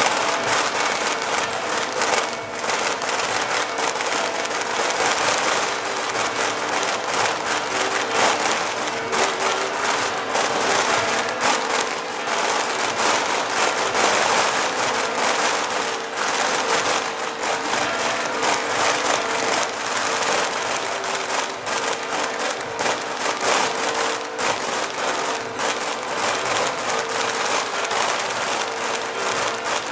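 Large crowd applauding steadily and without a break, with a faint held note sounding beneath the clapping.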